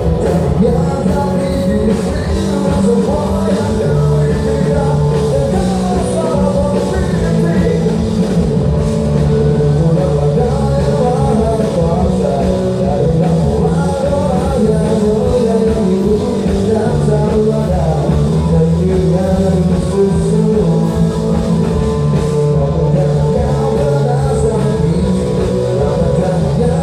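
Rock band playing a song live on stage, with electric guitar and drum kit, at a steady loud level.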